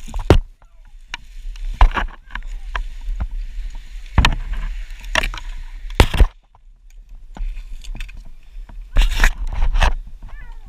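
Irregular sharp knocks and scrapes over a steady low rumble, with a short chirp near the end.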